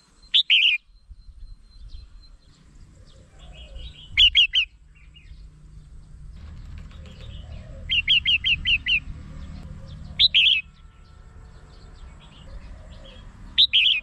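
Red-whiskered bulbul calling: five short, bright phrases of a few notes each, spaced a few seconds apart, one of them a quick run of about six notes. A faint low rumble sits beneath.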